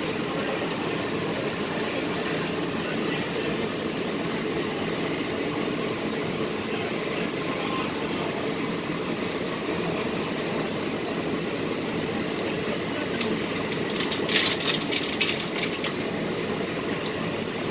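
Steady interior noise of a monorail car running, an even hum and hiss of drive and ventilation. About thirteen seconds in, a brief cluster of sharp clicks and rattles comes over it.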